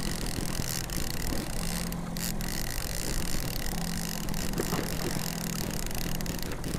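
Wind buffeting the microphone on an open fishing boat, over a low hum from the boat's motor that comes and goes.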